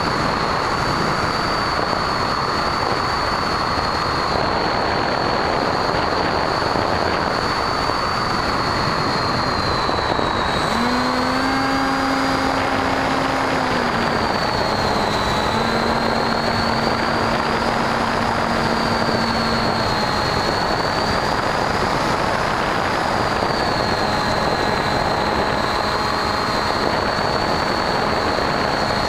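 Bixler RC plane's electric motor and propeller heard from the onboard camera: a steady high whine over rushing wind noise. About a third of the way in, the whine starts dipping and rising in pitch several times.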